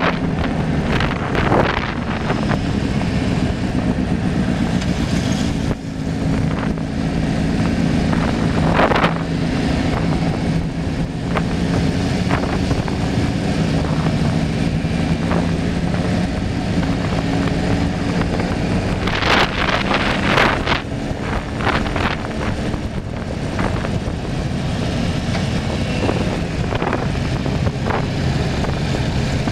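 Steady vehicle hum with wind on the microphone, broken by a few brief louder rushes.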